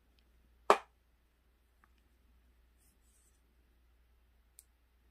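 One sharp clack about a second in, then a few faint clicks and a light rustle as a small power-tool battery pack is handled.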